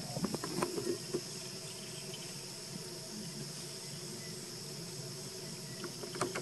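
Steady high-pitched insect chorus of crickets or cicadas buzzing without a break, with a few short clicks and taps in the first second.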